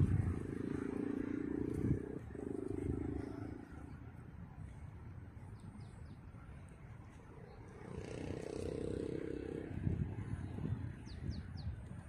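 Wind rumbling on the microphone in gusts, with a low steady drone twice and a few faint, short, high bird chirps near the end.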